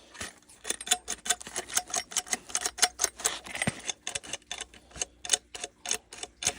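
Rapid, irregular clicking and tapping of metal door-lock hardware being handled, several small clicks a second.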